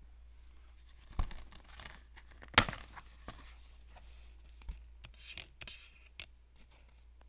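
Plastic DVD case being handled and opened: a click about a second in, then a louder sharp snap about two and a half seconds in as the case comes open, followed by light rustling and a few smaller clicks and taps.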